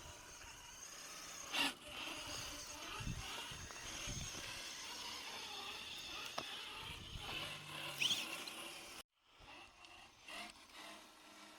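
Electric motor and gearing of a 1/7-scale RC trail truck whining steadily as it drives, with scattered knocks and clicks. The sound cuts out suddenly about nine seconds in, then comes back quieter.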